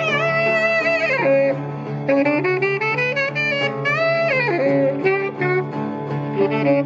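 Saxophone playing a jazz melody with wavering held notes and falling slides, over a laouto (Cretan lute) accompaniment.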